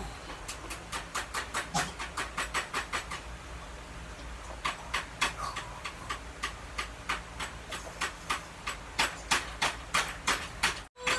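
A person gulping down a thick drink: a steady run of wet swallowing clicks, about two to three a second, with a brief pause a little over three seconds in.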